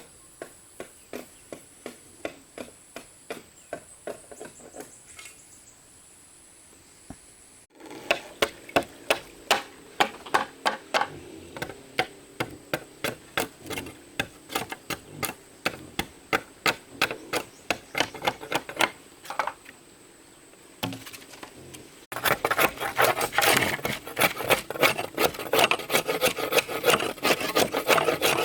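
Rhythmic scraping strokes of a hand tool working, about three a second, in three spells that each grow louder.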